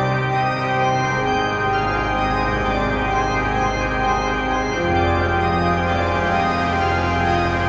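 Slow organ music: sustained chords over a held bass note that moves to a new pitch about a second in and again near five seconds in.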